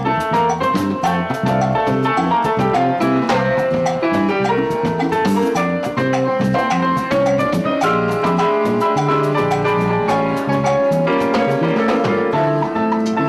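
Live salsa-style Latin music with no singing: an electronic keyboard plays a melody over a steady drum and percussion rhythm.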